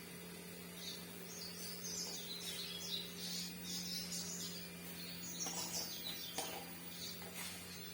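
Small birds chirping repeatedly in the background over a steady low hum, with a few faint knocks near the end.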